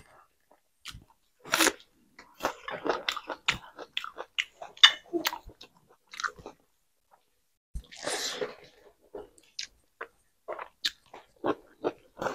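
Close-miked mukbang eating: a person chewing mouthfuls of rice and vegetable curry eaten by hand, with many short irregular clicks and crackles, and a short hiss about eight seconds in.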